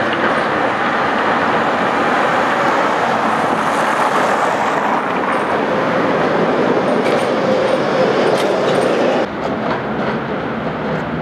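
Tatra T3 tram running close past over worn, uneven track, with steady wheel-and-rail noise. About nine seconds in it cuts off abruptly and a quieter, more distant tram takes over.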